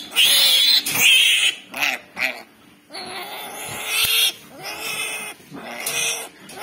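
Newborn piglet squealing over and over, shrill and loud, while it is held and its needle teeth are clipped with cutters. The cries come in a string with short gaps, the loudest in the first second and a half.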